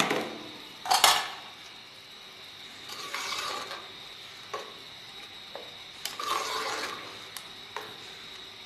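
A slotted spoon stirring rice into boiling stock in an aluminium cooking pot. It knocks sharply against the pot near the start and again about a second in, then makes two longer swishing stirs with a few light clinks in between.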